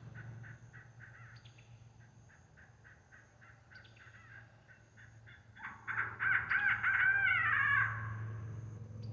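Electronic game caller playing recorded bird calls through its speaker: a run of faint short repeated notes, then a louder series of arching calls about six seconds in.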